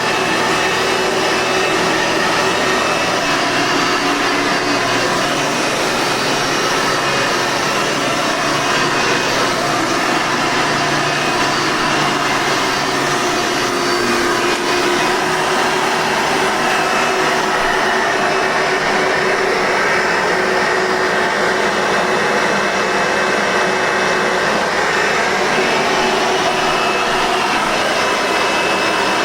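Hoover Soft N Light 7-amp vacuum cleaner motor running steadily, a constant hum and whine with no change in speed.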